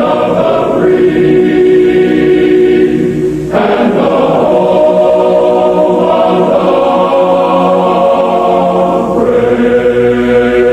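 Choral music: a choir of voices holding long chords that change every few seconds.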